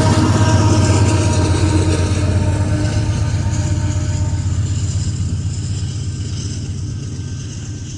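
Rear diesel locomotive of a long freight train, a GE AC4400CW, rumbling past with a steady low engine drone and a few held tones, fading steadily as it moves away.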